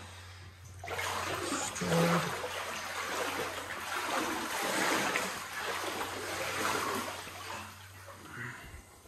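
Sloshing and splashing of legs wading through deep floodwater inside a house, rising about a second in and easing off near the end.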